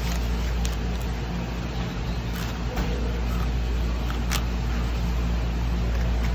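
Steady low machine hum, with a few faint clicks and scrapes as a filleting knife works along a rock bream's backbone.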